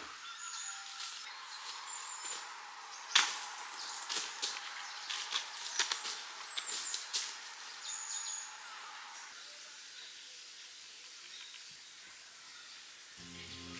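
Camper handling gear at the tent entrance: a sharp crack about three seconds in, then a run of small clicks and knocks that stops about eight seconds in.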